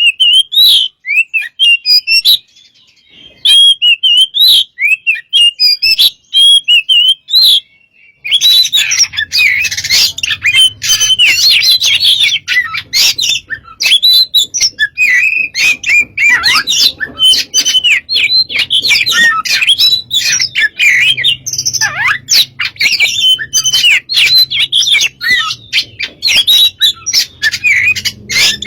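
An Oriental magpie-robin (kacer) singing loudly in full 'gacor' song, with quick varied whistles, trills and harsh chattering notes. Separate phrases with short pauses give way, about eight seconds in, to a dense, nearly continuous stream of song over a faint low hum.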